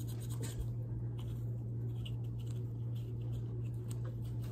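Soft rubbing, light scratching and small plastic clicks of a disinfecting wipe being worked over a plastic GPS monitor, over a steady low hum.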